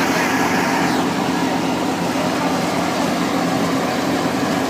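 Tractor-driven wheat thresher running steadily, its threshing drum and fan making a loud, constant mechanical drone over the Al Ghazi tractor's diesel engine that powers it.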